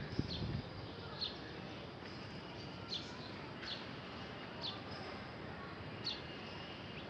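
Birds chirping outdoors: short, high, downward chirps repeated every second or so over a steady background hiss.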